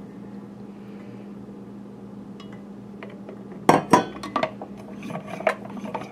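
The glass carafe of a Bodum manual milk frother clatters as its metal lid is set on, about two thirds of the way in. The plunger is then pumped up and down in heavy cream, knocking and clicking two or three times a second, as the cream is worked toward whipped cream.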